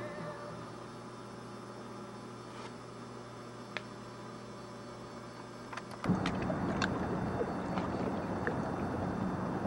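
Low steady hum for about six seconds, then a sudden switch to louder noise of wind and choppy open water, with scattered small clicks and splashes.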